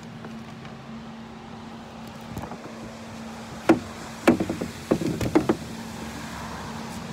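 Knocks and bumps of handling right at the phone's microphone: two sharp knocks about halfway through, then a quick run of smaller knocks, over a steady low hum.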